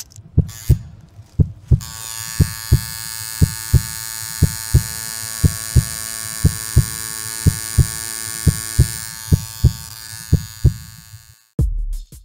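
Heartbeat-like double thumps about once a second under a sustained synthesizer drone, ending in heavy low bass hits near the end: an intro soundtrack.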